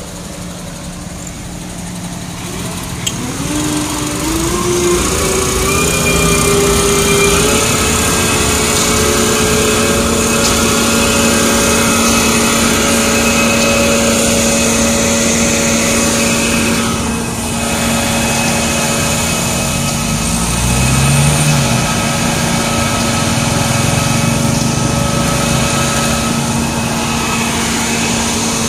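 Heavy diesel truck engines revving up in steps about three seconds in and then held at high speed, driving the ready-mix truck's drum and the concrete pump as concrete is discharged.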